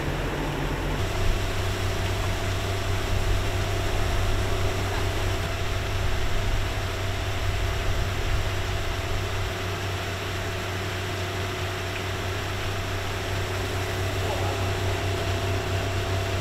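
A machine engine running steadily at a constant speed, a low even hum with a fixed higher tone above it, settling in about a second in over a background hiss.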